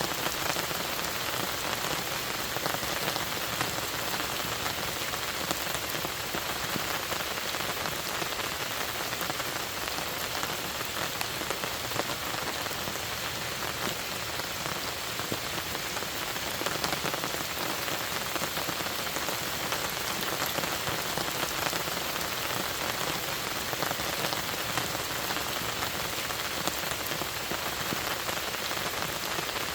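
Steady rain falling on a lake, an even hiss with many small drop patters and no letting up.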